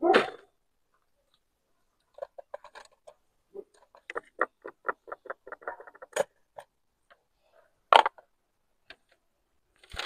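A dog barks once at the very start, followed by a run of quick, even ticks, about four or five a second, and a couple of sharp clicks near the end.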